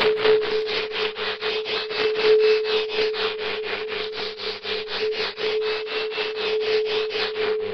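Electronic audio track: a steady mid-pitched tone under a rapid, even pulsing hiss, about seven pulses a second, with a faint wavering higher tone.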